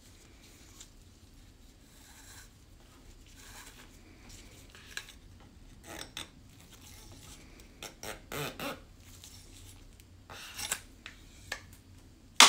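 Bore snake being pulled through an AR-15 barrel to scrub out grit and fouling: intermittent rasping, rubbing bursts of cord dragging through the bore. A sharp knock comes right at the end.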